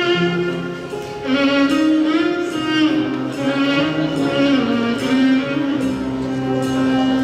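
Instrumental introduction to a Turkish song, played by a small string ensemble with violins carrying a sliding, ornamented melody over sustained lower notes.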